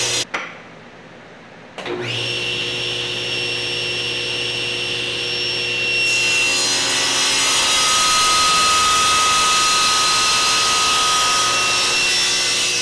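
Table saw ripping a thin strip off a dark wood block: the blade runs with a steady whine over the cutting noise. The sound drops away briefly just after the start, and a higher whine holds from the middle until near the end.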